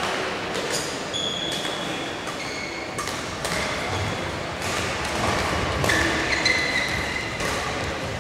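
Badminton rally: rackets strike the shuttlecock in a string of sharp hits, while court shoes squeak briefly on the floor, the sounds echoing in a large hall.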